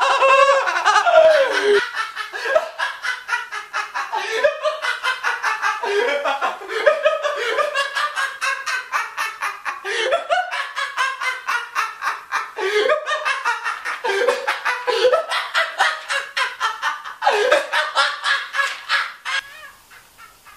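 A man's long, exaggerated villain's laugh: rapid ha-ha pulses in several bouts with short breaths between them, stopping near the end.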